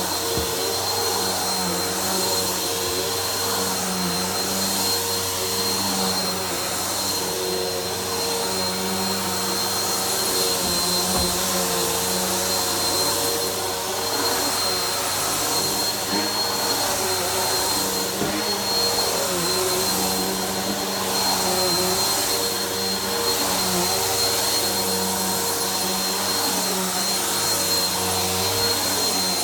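Vacuum cleaner running steadily while vacuuming a floor, its motor noise topped by a constant high whine. The lower motor tones waver a little as it is pushed about.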